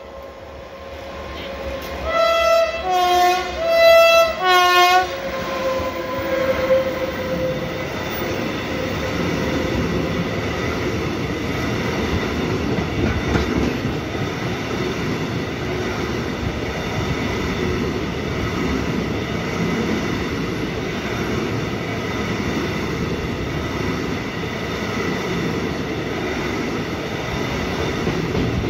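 Horn of a class 111Ed electric locomotive (Siemens Vectron) sounding the Rp1 warning signal about two seconds in: a quick run of about five short blasts on two alternating notes. The locomotive then passes and a long container freight train rolls by, a steady rumble and clatter of wheels on rail.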